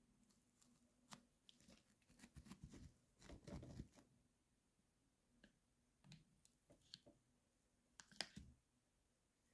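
Faint handling noises: scattered small clicks and taps of small objects being handled, with a short cluster of rustling about three and a half seconds in and a sharper click near the end.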